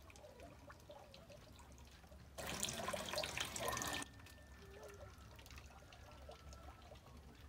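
Water splashing and running for about a second and a half, midway through. Around it come faint small wet ticks from the feathers being plucked off a scalded chicken.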